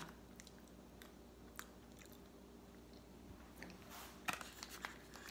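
Faint, soft chewing of thawed frozen durian, with a few light clicks and crinkles from its plastic wrapping about four seconds in.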